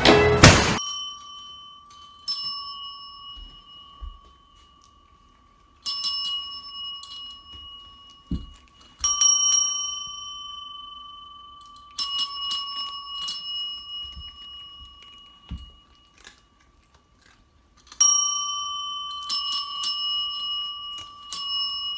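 A small metal bell struck over and over, each ding ringing on at the same pitch and slowly fading, sometimes with two or three quick dings in a row and pauses of a few seconds between groups.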